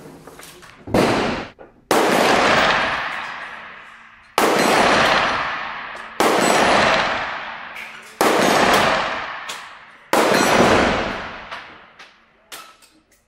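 Six 12-gauge shotgun shots from a Saiga 12 semi-automatic shotgun, spaced roughly two seconds apart, each followed by a long echoing decay under the covered range's roof and concrete walls.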